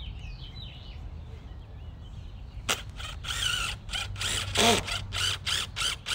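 Cordless drill driving screws into a wooden concrete form, in a string of short motor runs with brief pauses, starting about two and a half seconds in. Before that, birds chirp faintly.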